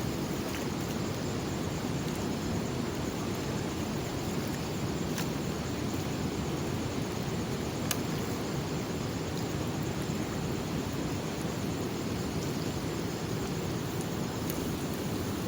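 Steady low rushing noise throughout, with a few faint ticks, the clearest about halfway through.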